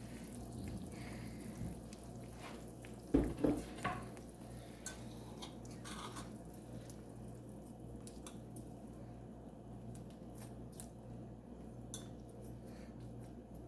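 A cooking utensil knocking and clinking against a pot of stewing chicken, a few knocks close together about three to four seconds in, then scattered light clicks, over a steady low hum.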